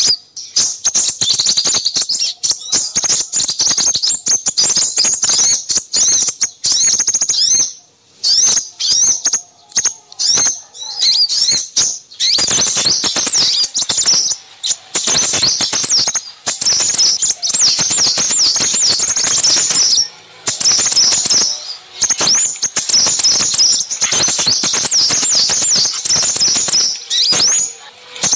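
Busy chatter of small birds: rapid, high-pitched chirps and twitters packed closely together, with two short breaks. It is a bird-trapping lure call meant to draw in crimson sunbirds.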